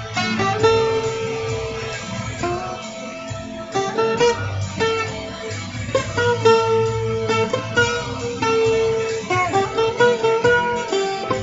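Guitar improvisation: plucked single notes and short phrases ringing over a steady low backing.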